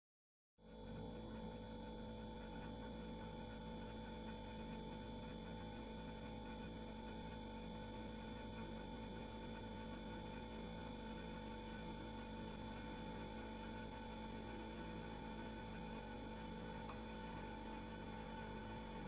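Household refrigerator running: a steady, faint hum with a few fixed tones over a soft noise bed, starting less than a second in after a moment of silence.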